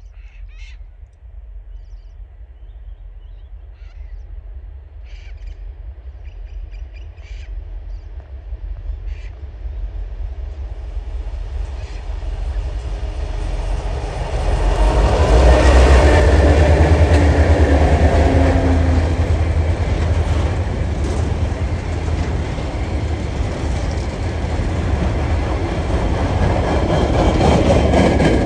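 TasRail diesel locomotives 2054 and 2051 approach at the head of an empty coal train and pass close by. A low engine hum peaks about halfway through, then the wagons keep up a steady loud rolling rumble with some wheel squeal. Short bird calls sound in the first few seconds, before the train grows loud.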